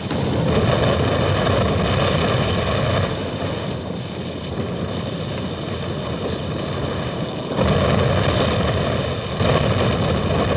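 A steady rumbling roar from a sound effect. It eases off after about three seconds and swells again about seven and a half seconds in.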